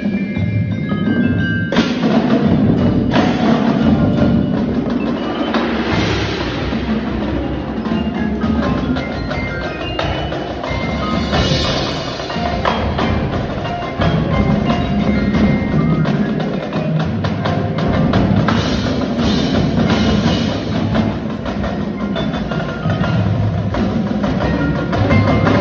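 Indoor drumline performing: marching snare, tenor and bass drums played together with a front ensemble of marimbas and other mallet percussion, dense with sharp strokes and a strong hit about two seconds in.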